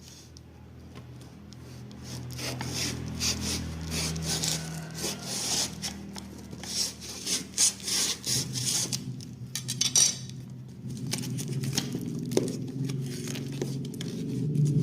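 Cardboard and plastic packaging being handled and rubbed while the box is opened: a quick run of scraping, rustling strokes over a low steady hum.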